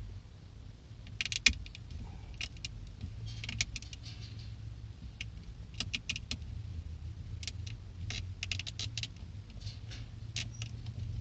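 Knife blade prying at a Mazda Miata's steering-wheel horn button: irregular small clicks and short scrapes, the loudest click about one and a half seconds in, over a steady low hum.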